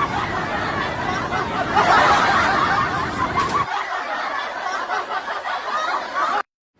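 People laughing and snickering, which cuts off abruptly near the end.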